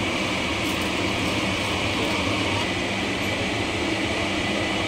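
A steady whirring hum with hiss, even and unchanging throughout.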